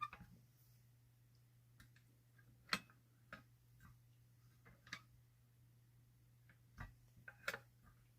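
Near silence over a low steady hum, broken by light clicks and knocks a second or two apart, the loudest a little under three seconds in: handling noise as objects are moved about.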